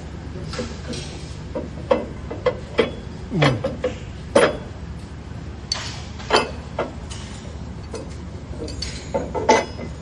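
Irregular metallic clinks and knocks of steel tools and engine parts being handled and set down during a diesel engine overhaul, over a steady low hum.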